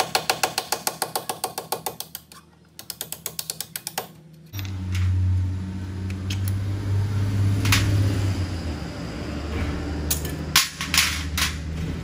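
Rapid light hammer taps, about seven a second, on a pin punch driving the pad retaining pins out of a front 6-piston Brembo brake caliper, in two quick runs with a short pause between. A steady low hum then comes in, with a few sharp metallic clicks near the end.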